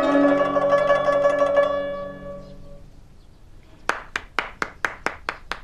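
Guzheng plucked, its last notes ringing and fading away over about two seconds. About four seconds in, a single person starts clapping steadily, about four or five claps a second.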